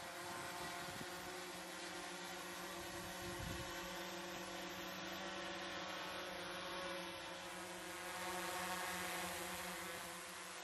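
Propellers of two small DJI quadcopter drones, a Mavic Mini and a Mavic 2 Zoom, hovering: a steady buzzing hum with several held tones over a hiss, growing a little louder about eight seconds in. A few low thumps in the first few seconds.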